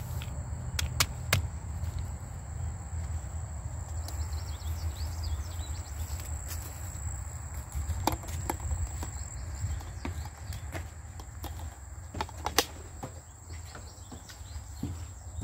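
Outdoor ambience: a steady high-pitched whine over a low rumble, with faint bird chirps. Scattered knocks and footsteps come through it, the sharpest knock near the end.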